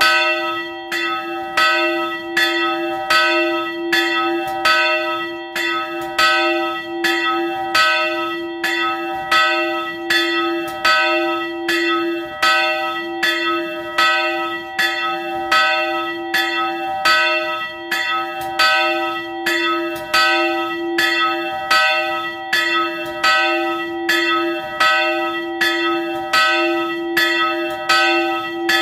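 Early-18th-century Nuspicher-cast church bell swinging and ringing, its clapper striking about once a second. Each stroke rings on into the next.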